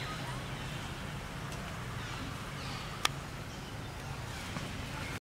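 Faint high-pitched animal calls that glide down in pitch, over a low steady rumble, with one sharp click about three seconds in.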